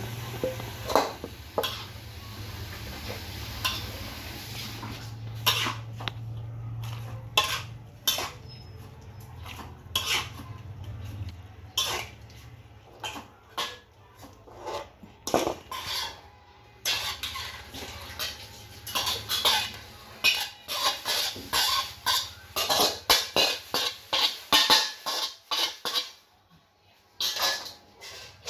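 Metal kitchen utensils clinking, knocking and scraping against pots and dishes in a long run of irregular strikes, busiest in the second half. A low steady hum runs under the first ten seconds or so.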